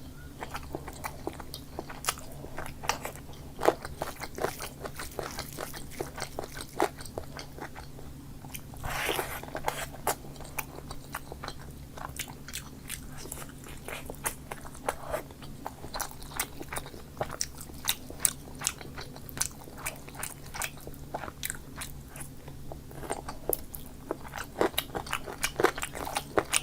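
A person eating chicken curry and dal close to the microphone: chewing and biting with many sharp, irregular mouth clicks and crunches, and a longer noisy smear about nine seconds in. A steady low hum runs underneath.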